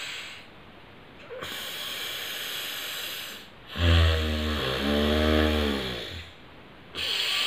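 A person breathing forcefully through one nostril at a time in alternate-nostril breathing (anulom vilom): a series of hissing nasal inhales and exhales, each lasting a second or two. The longest, from about four to six seconds in, carries a low buzzing, snore-like tone.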